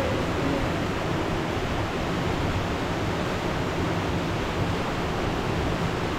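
Steady rush of flowing water, a continuous even roar with no change in level.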